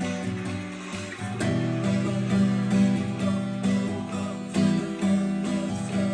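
Guitar strumming chords in a steady rhythm.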